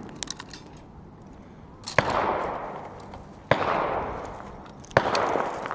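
Three gunshots about a second and a half apart, each a sharp report followed by a long, fading echo.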